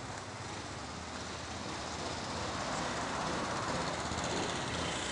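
Small engine of a ride-on lawn mower running steadily under a rough, noisy haze, getting louder from about two seconds in.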